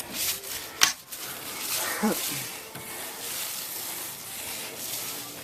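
A broom sweeping a rubber roofing membrane down onto freshly glued OSB decking to bed it in the adhesive: a steady brushing rasp, with a sharp knock just under a second in.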